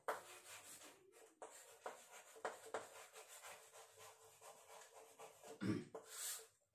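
Chalk scratching and tapping on a chalkboard as words are handwritten in short strokes, faint, with a louder low thump about five and a half seconds in.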